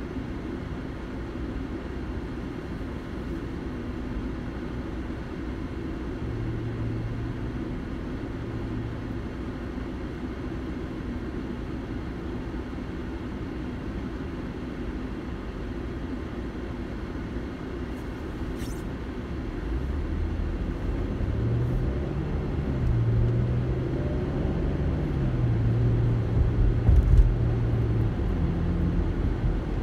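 Car interior noise: a steady low engine hum while the car sits in stopped traffic. About two-thirds of the way through, engine and road rumble grow louder as the car pulls away and picks up speed.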